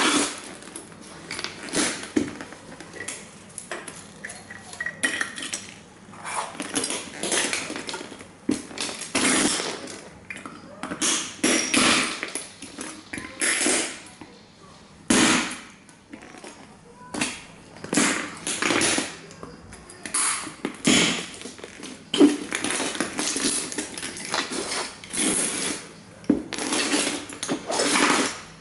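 Cowboy boots stomping on and grinding plastic model toy trains, the plastic crunching and breaking pieces clattering on the board in irregular bursts about every second or two.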